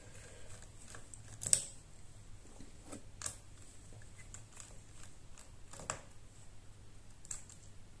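A few faint, irregular clicks and light knocks, the loudest about one and a half seconds in, from a Phillips screwdriver and hand working the small hinge screws of a laptop.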